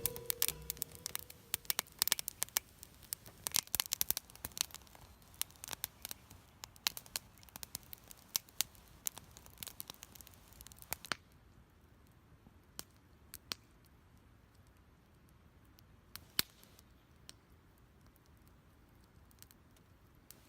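Wood fire crackling: dense sharp snaps and pops for about the first ten seconds, then only occasional single pops.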